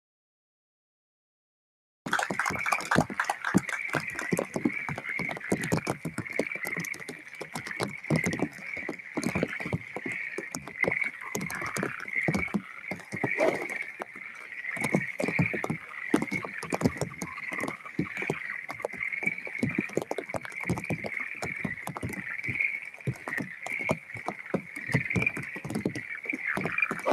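A steady chorus of frogs calling, mixed with dense crackling throughout. The sound cuts out completely for about the first two seconds.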